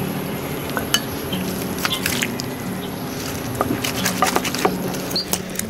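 Kitchen utensils clinking and knocking against pots and dishes: scattered light clicks, a cluster of them about four seconds in.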